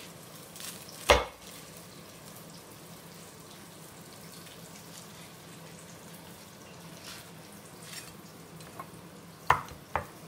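A cleaver chopping through crisp fried spring rolls and knocking on a plastic cutting board: one loud chop about a second in, a few light taps later on, and two more sharp knocks near the end.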